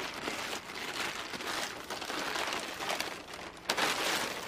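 Crinkly green gift wrapping rustling and crackling as it is pulled off a small potted lavender plant, with a louder crackle near the end.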